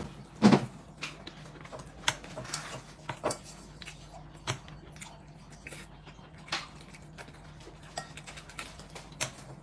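Eating at a table: quiet chewing and scattered short clicks and knocks of utensils against bowls and dishes, the sharpest about half a second in.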